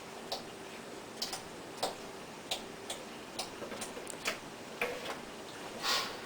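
Irregular light clicks and taps, roughly one or two a second with uneven gaps, over a steady faint hiss.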